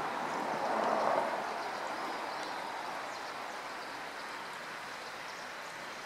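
Steady rushing outdoor background noise that swells about a second in and then slowly eases. No call from the kingfisher stands out.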